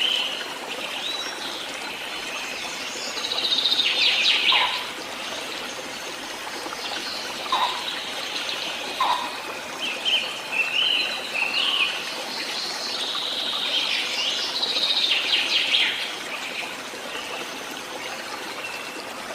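Songbirds chirping and trilling in short repeated phrases over a steady hiss of running water: a nature-ambience bed.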